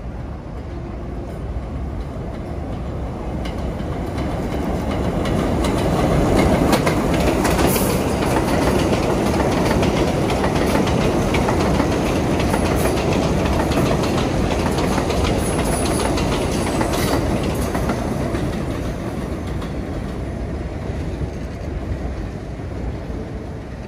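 New York City subway train running on the rails with a steady rumble and the clack of wheels over rail joints. It grows louder over the first six seconds or so, holds, then slowly fades through the second half.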